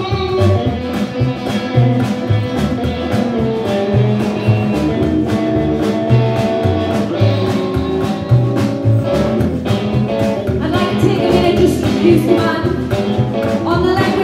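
A live band playing a song: upright double bass, drum kit and electric guitar, with a woman singing over them.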